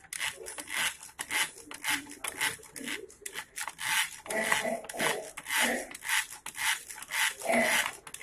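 Hand whisk beating an egg in a plastic bowl: quick, even scraping and clicking strokes, about three a second.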